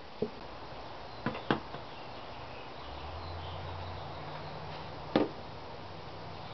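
Light plastic knocks and taps as a toner bottle and laser-printer cartridge are handled and set down on a workbench: one knock, then two close together about a second and a half in, and a louder one about five seconds in. A low steady hum comes in about three seconds in.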